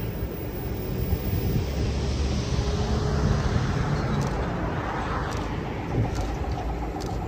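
Steady low rumble of a Class 66 diesel-electric locomotive approaching from a distance at the head of a freight train, mixed with road traffic noise.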